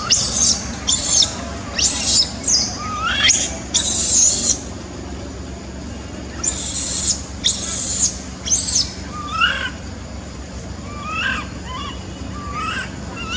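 Infant macaque screaming: short, high-pitched shrieks repeated in two quick bouts, followed by softer rising squeaks.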